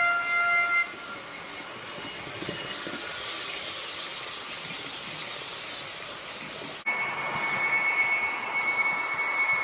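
H0 model train horn ending just under a second in, followed by the steady rushing of a model passenger train running fast along the track. About seven seconds in the sound cuts abruptly to louder running noise with a steady high whine, from an H0 model DB class 120 locomotive hauling Intercity coaches past.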